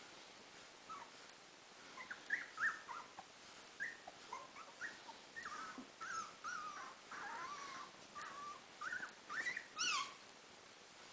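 Three-week-old standard schnauzer puppies whimpering and yipping in a string of short, high calls that come thicker as it goes on, the loudest just before the end.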